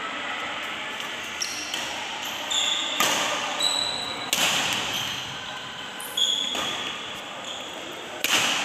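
Badminton rackets striking the shuttlecock in a rally, about four sharp hits including jump smashes, each ringing on in the echo of a large hall. Short high squeaks of court shoes come between the hits.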